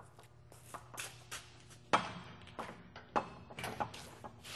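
Irregular knocks and clanks of a semi-trailer's conventional metal door lock hardware being handled, with a louder knock about two seconds in.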